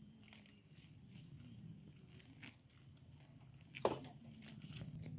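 Cow grazing: tearing off mouthfuls of grass and chewing, with scattered crisp snaps and crunches, the loudest a little before four seconds in.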